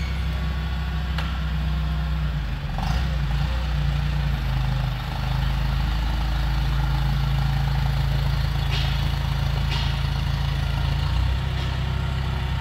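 Propane (LPG) engine of a Crown counterbalance forklift running at low speed as the truck pulls off and swings through a full-lock turn. Its note shifts a couple of times along the way.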